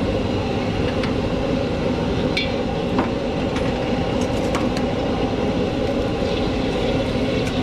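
Gas wok burner running at full flame, a steady rushing noise, with a few sharp clinks of a metal ladle against the iron wok.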